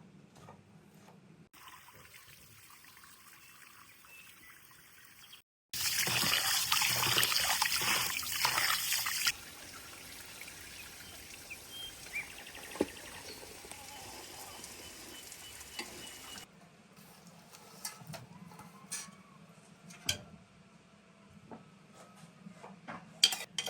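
Water pouring or running, loudest for about three seconds starting near six seconds in, then going on more softly for several seconds; the rest is quieter, with scattered clicks and knocks of handling.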